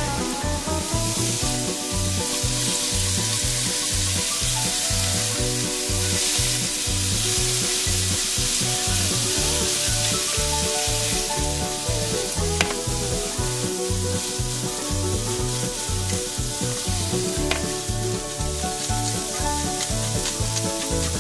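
Pork neck and smoked duck sizzling steadily in a hot nonstick frying pan as they are stir-fried with tongs, with soybean sprouts in the pan by partway through. A couple of sharp clicks stand out, one about halfway and one near the end.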